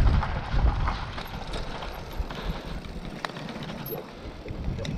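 Mountain bike rolling down a dirt trail and slowing down: wind and tyre rumble fade within the first second, leaving quieter rolling over twigs and dirt with a few sharp clicks and rattles from the bike.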